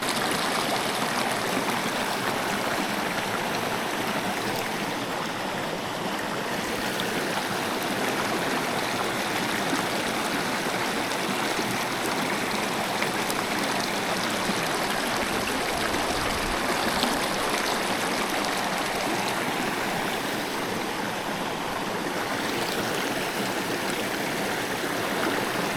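Small freshwater trout stream running, a steady rush of water.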